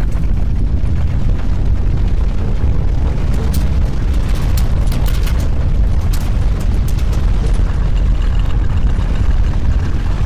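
Deep, loud earthquake rumble with scattered rattling and clattering of loose objects shaking.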